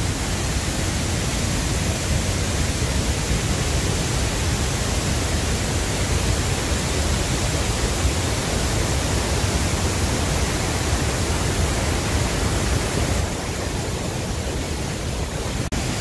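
Steady rushing of a large waterfall, the Genesee River's Middle Falls with a drop of over 300 feet, and its spray. It eases slightly near the end and breaks off for an instant just before it ends.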